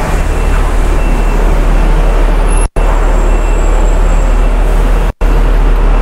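City bus running, a steady heavy low rumble of engine and road noise. The sound cuts out completely for a split moment twice.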